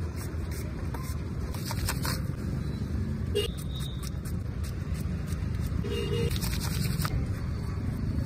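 Quick scraping strokes of a hand blade shaving slices off pineapple and kiwi, over a steady low rumble of road traffic.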